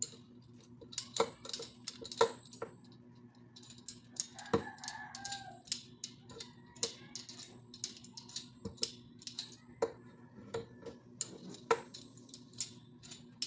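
Irregular clicks and knocks from the metal parts of a scissor-arm microphone boom stand as it is handled, adjusted and fitted into its table clamp. A chicken calls briefly about four and a half seconds in.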